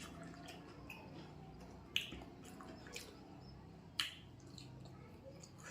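Quiet eating sounds: chewing, with two sharp clicks about two seconds apart.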